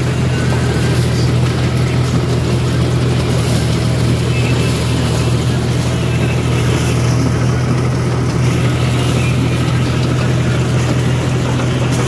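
Corn harvester's engine and machinery running steadily under load while cutting dry maize stalks, a constant loud drone with a deep hum.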